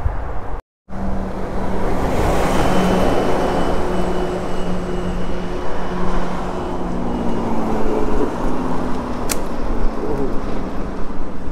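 Wind and road noise from riding an electric mountain bike: a steady rush with a low hum. A louder hum with a faint high whine swells about two seconds in and fades. The audio drops out completely for a moment just under a second in, and there is one sharp click near the end.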